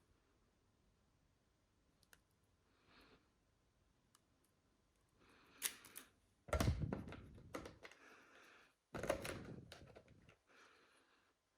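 Unboxing sounds: scattered light clicks, then handling of the memory kit's packaging with two louder knocks about six and a half and nine seconds in, each followed by rustling.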